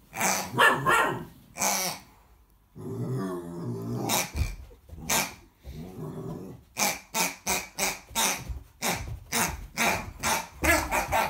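American Akita puppy growling and barking in play: a low growl about three seconds in, then a quick run of short barks and yaps, about three a second, in the second half.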